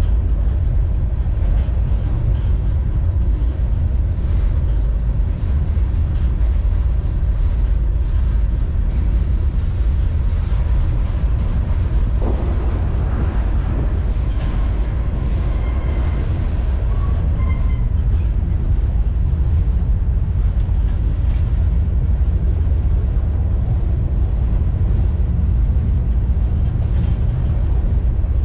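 Freight train rolling, heard from aboard a car: a loud, steady low rumble of wheels on the rails, with a few faint brief squeals about halfway through.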